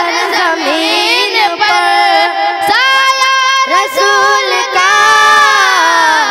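Boys singing a naat (Urdu devotional song praising the Prophet) into handheld microphones, with ornate, bending melodic runs and a long held note near the end.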